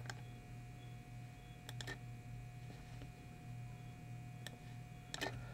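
A few faint, sharp computer mouse clicks, spaced a second or more apart, over a low steady hum.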